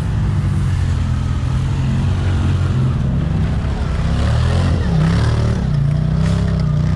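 ATV engine revving, its pitch repeatedly dipping and rising again.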